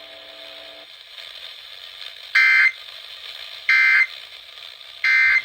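NOAA Weather Radio end-of-message SAME data bursts: three short, loud, buzzy digital bursts, evenly spaced, marking the end of the severe thunderstorm warning broadcast. They come over the receiver's steady faint static, and a faint low hum stops about a second in.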